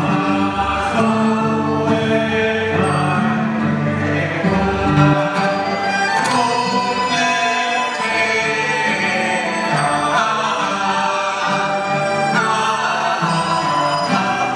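Taoist ritual chant sung together by a group of voices over a Chinese traditional instrumental ensemble of bowed and plucked strings, in a slow, festive ritual melody. A few sharp strikes are heard, about six and ten seconds in.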